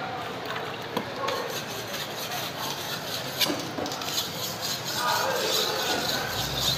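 Knife cutting and scraping through a large raw fish on a wooden chopping block, with a few sharp taps of the blade on the wood.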